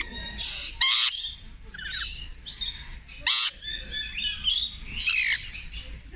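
Rainbow lorikeet calls: quick high chirps and chatter, broken by two loud harsh screeches, one about a second in and another a little after three seconds.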